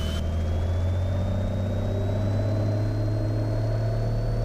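Cessna 182 Skylane's piston engine and propeller running steadily, the pitch rising slowly as power comes up for the takeoff roll.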